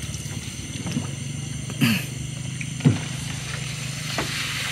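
Small boat engine running steadily at low revs, with a fine even pulse, and two short knocks about two and three seconds in.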